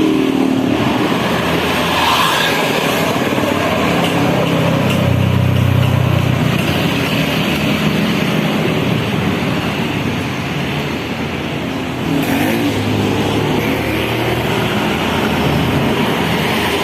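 Road traffic noise of heavy vehicle engines, such as tour buses, running and passing. The noise is steady and loud, eases off briefly about ten seconds in and picks up again around twelve seconds.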